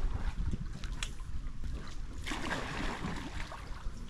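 Wind buffeting the microphone, with small lake waves lapping at a stony shoreline. A stronger wash of water comes about two seconds in.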